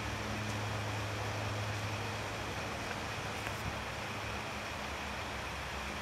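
Steady background noise: a low hum under an even hiss, with no distinct sounds standing out. The hum eases after about two seconds.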